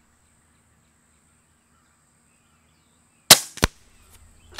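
Near silence for about three seconds, then a single shot from an Air Arms Galahad HR .22 regulated PCP air rifle: one sharp crack with a short tail, followed about a third of a second later by a second short sharp click.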